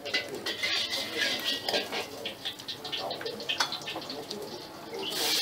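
Metal fork and spoon clinking and scraping on a ceramic plate in a series of short clicks. A steady hiss sets in near the end.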